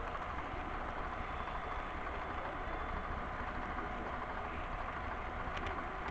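Steady running noise of a model train's motor and wheels on the rails, heard close up from the train itself.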